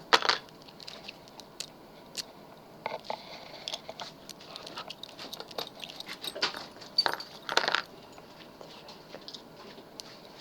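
Lock picks and a tension wrench working in a lock: irregular small metallic clicks, taps and short scrapes, with a few louder handling rustles.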